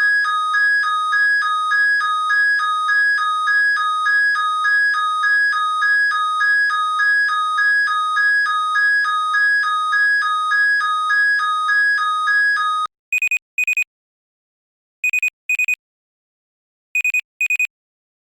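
Electronic alarm clock sounding: a rapid warble between two high tones, repeating a few times a second, cuts off suddenly about thirteen seconds in. It gives way to short beep-beep double beeps, about one pair every two seconds.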